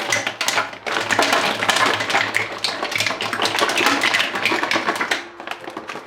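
Rapid, dense clattering of small hard objects knocking together, over a steady low hum, thinning out near the end.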